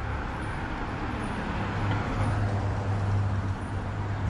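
City street traffic: steady road noise from passing cars. A low engine hum swells about halfway through as a vehicle goes by.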